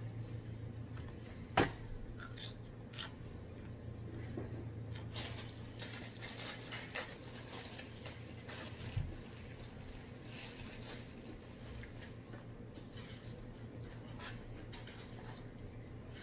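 Close-up eating sounds: fried catfish being pulled apart by hand and chewed, with scattered small clicks and a sharp click about a second and a half in, and a dull thump about nine seconds in. A steady low hum runs underneath.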